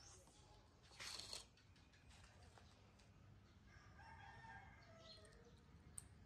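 Faint, distant rooster crowing about four seconds in, one drawn-out call that falls in pitch at the end, over quiet background. A brief rustling noise about a second in is the loudest moment.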